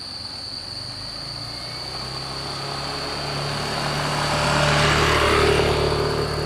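A motor vehicle's engine approaching and passing close by, growing louder to a peak about five seconds in, then easing off. A steady high insect-like trill runs underneath.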